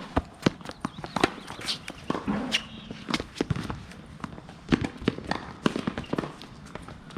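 Tennis rally: a series of sharp pops from racket strikes on the ball and ball bounces, spaced about half a second to a second apart, with scuffs of players' shoes between them.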